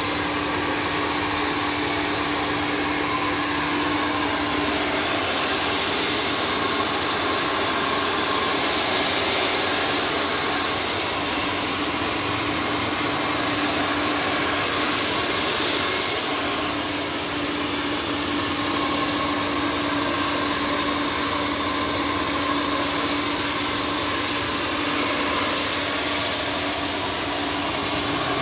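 Handheld hair dryer with a concentrator nozzle blowing steadily: an even rush of air with a faint motor hum, as hair is lifted with a round brush.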